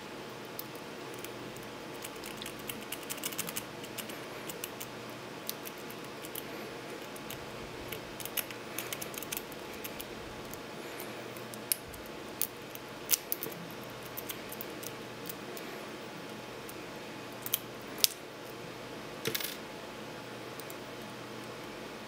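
Small brass padlock being picked with a bent-wire pick and tension wrench: light metallic clicks and scrapes from the pick working in the keyway, coming in bunches, with a few sharper clicks and a brief rattle in the second half. A steady hiss lies underneath.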